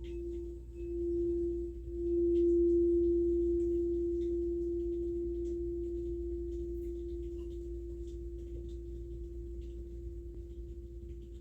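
A single pure, sustained ringing tone from a sound-bath instrument, swelling twice in the first two seconds and then slowly fading.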